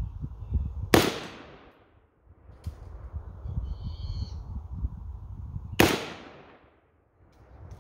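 Two single rifle shots from a Poly Tech AK-47 in 7.62×39, about five seconds apart, each followed by a fading echo.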